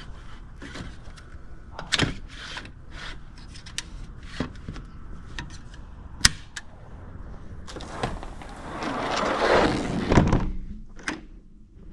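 A glass door that is hard to shut being worked closed: scattered knocks and clicks, then a sliding sound of about two seconds that ends in a thunk about ten seconds in.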